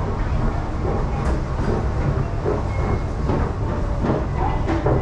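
A train running on the tracks close by, a steady low rumble with a few faint knocks.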